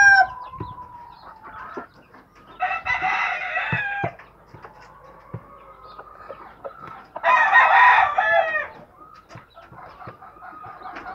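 Rooster crowing twice, once about two and a half seconds in and again about seven seconds in, each call about a second and a half long. Between the crows comes a scatter of quick light taps from a gamecock pecking grain off an artificial-turf mat.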